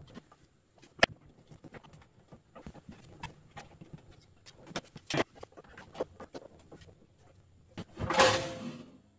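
Scattered clicks and knocks of RCA cable plugs and connectors being handled behind audio equipment, with a sharp click about a second in. About eight seconds in there is a short rushing, scraping noise.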